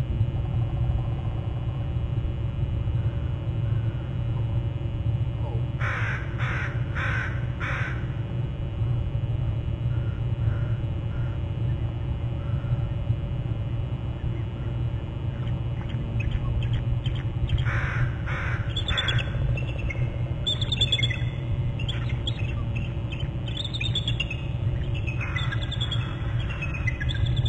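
Crows cawing: a run of four evenly spaced caws, a run of three about halfway through, then quicker, more varied calls toward the end, over a steady low hum.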